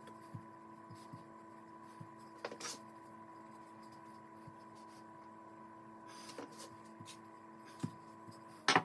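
Steady low hum with scattered soft knocks and a couple of brief brushing sounds from puff pastry dough being rolled and handled on a work surface; a louder knock comes near the end.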